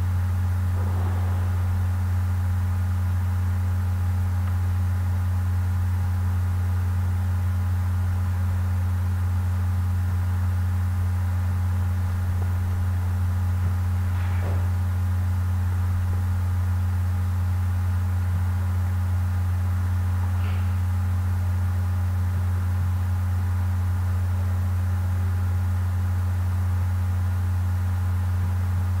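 A steady, unchanging low hum with a weaker overtone and a few faint thin higher tones, with no speech.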